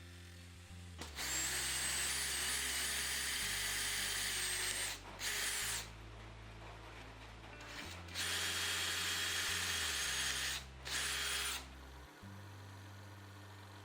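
Electric power tool running at high speed with a high whine, in two long runs, each followed by a short burst, over background music.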